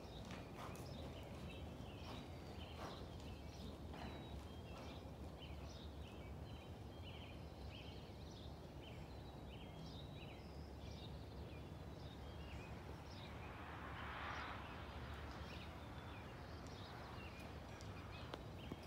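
Faint, muffled hoofbeats of a horse cantering on sand arena footing, over a low steady background rumble, with small birds chirping throughout. A brief hiss swells and fades about three-quarters through.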